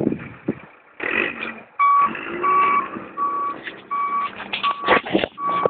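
A vehicle's reversing alarm beeping at an even pace, about one beep every three quarters of a second, starting about two seconds in, over its engine running.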